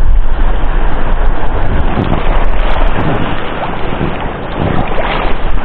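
Wind buffeting the microphone: a loud, steady rumbling hiss with no pitched tone in it.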